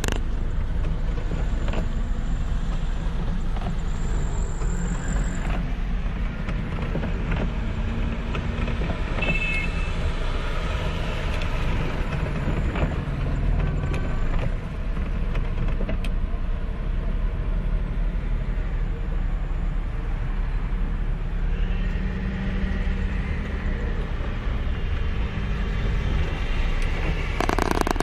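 Steady low rumble of a car's engine and tyres heard from inside the cabin while driving on a wet, flooded road. A louder noisy rush comes in near the end.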